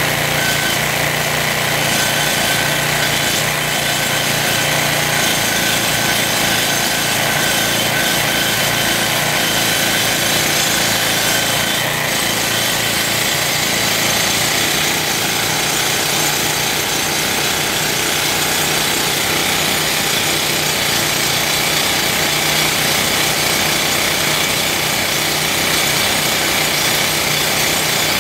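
Toku TS 55 rock drill running steadily, hammering very rapidly into rock with a dense hiss over the top.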